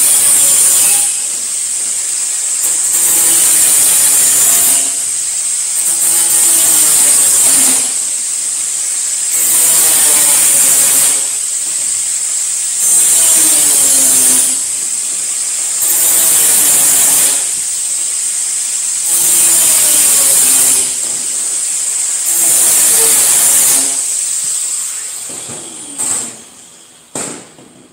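Angle grinder with a cutoff disc cutting thin sheet metal in repeated passes, about eight cuts of a second or two each, the high whine dropping back between them while the disc keeps spinning. Near the end the grinder spins down and a few sharp metal clanks follow as the sheet is handled.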